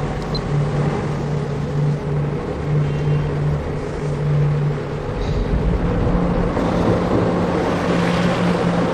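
Car engine and road noise as a car is driven, with a steady low hum whose pitch steps up a little about six seconds in.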